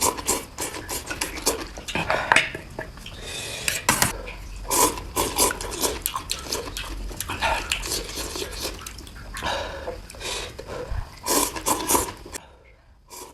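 Spoon and chopsticks clinking and scraping against a bowl of noodle soup in a quick run of short clicks and clatters, mixed with close-up eating noises; it dies down near the end.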